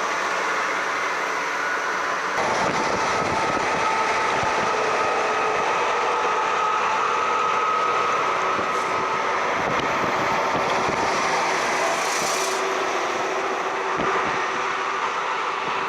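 Steady road noise of moving vehicles, with a deeper rumble joining about two seconds in.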